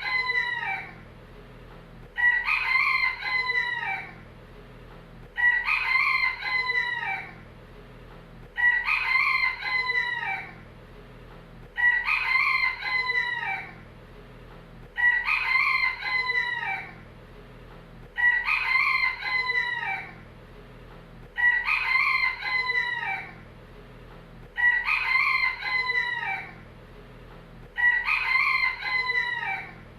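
A rooster crowing, the same crow of about two seconds repeating evenly about every three seconds, nine or ten times, as a looped recording. A faint steady low hum lies underneath.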